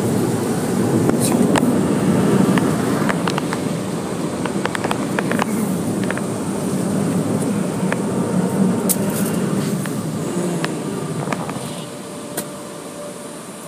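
Automatic tunnel car wash heard from inside the car: its spinning cloth brushes and wash machinery work over the body as a steady rushing, with scattered slaps and ticks against the glass and panels. The sound eases off near the end.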